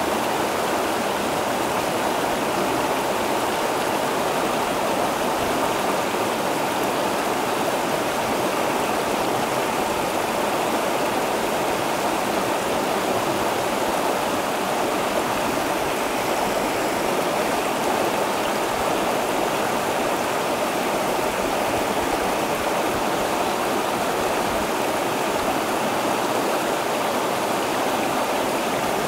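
A shallow rocky creek flowing over boulders and through a small riffle of white water: a steady, unchanging rush of running water.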